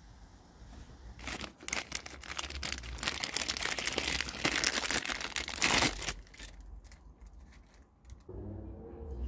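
A thin clear plastic parts bag crinkling and crackling as it is handled and pulled open. The crinkling lasts about five seconds, then stops.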